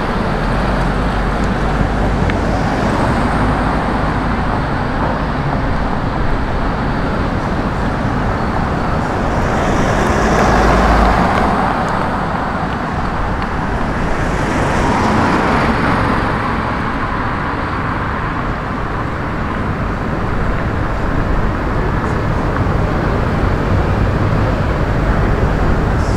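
Street traffic: a steady rumble of road noise from passing cars, swelling louder about ten seconds in and again about fifteen seconds in as vehicles go by close.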